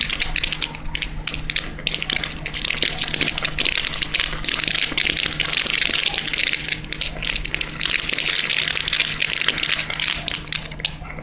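Ground firework burning with a dense, steady hiss full of rapid sharp crackles, which stops abruptly near the end.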